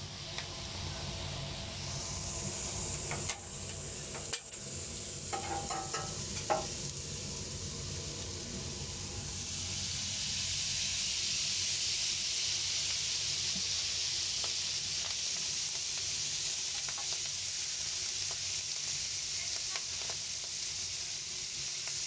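Skewered squid and mushrooms sizzling on a hot flat-top griddle. The sizzle grows louder and hissier about ten seconds in, as oil is poured over the skewers. There are a few sharp clicks and clinks in the first several seconds.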